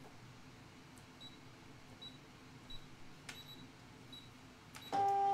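Brother ScanNCut cutting machine feeding a cutting mat in, with faint regular ticks and a few light clicks, then a loud steady electronic beep near the end.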